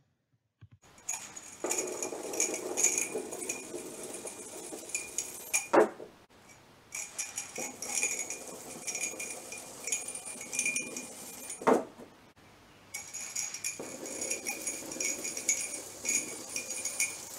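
Metal ball chain (beaded chain) streaming out of a ceramic coffee mug in a chain fountain: a fast, dense rattle and clinking of beads running over the rim. It comes three times, each run ending in a sharp clack.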